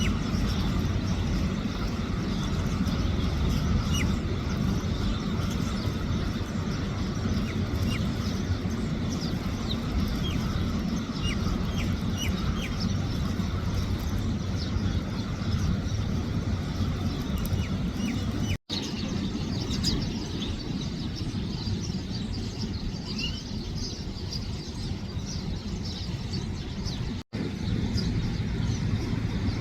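Sparrows chirping in short, scattered high chirps over a steady low rumble of road traffic. The sound cuts out for an instant twice, about two-thirds of the way through and again near the end.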